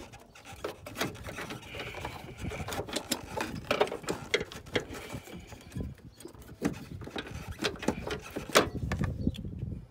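Irregular clicks, knocks and rattles of metal and plastic parts in a car engine bay as a Ford Explorer's A/C accumulator tank is handled and wiggled loose by hand.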